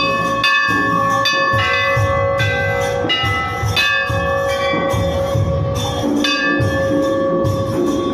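Hindu temple bells rung over and over, a fresh metallic strike every half second to a second, each ringing tone running on into the next. A low rhythmic beat runs underneath.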